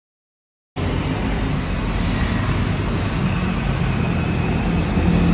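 Road traffic: vehicle engines and road noise in a steady mix, starting abruptly under a second in after a moment of silence.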